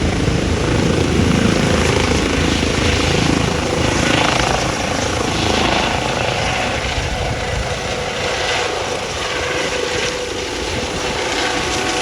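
Rescue helicopter's rotor and turbine running as it takes off. The deep low end thins out and the sound eases slightly after about four seconds.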